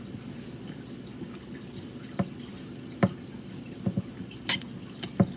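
Slime being pressed by hand into a cut-open rubber squish ball, giving about six short wet clicks and pops over the last three seconds or so.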